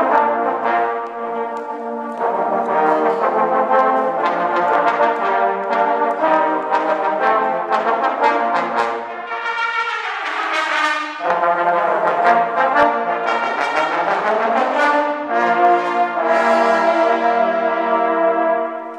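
A trombone choir playing slow, sustained chords, swelling to a bright, loud peak about eleven seconds in that breaks off abruptly, then going on with further held chords that fade near the end.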